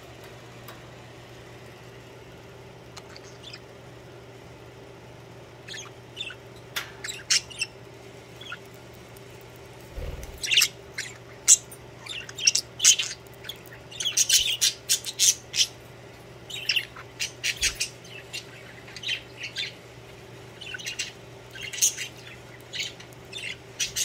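Pet budgerigars chirping and chattering in short, high calls, only a few at first and coming thick and fast from about ten seconds in. A faint steady low hum runs underneath.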